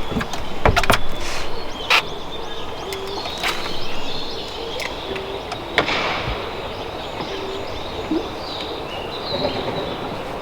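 Steady outdoor background noise with a few sharp clicks, most of them in the first two seconds, and scattered short high bird calls.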